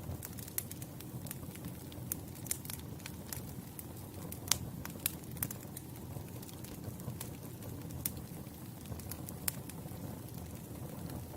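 Campfire burning: a steady low rumble with scattered sharp crackles and pops of the wood, irregularly spaced, the loudest pop about four and a half seconds in.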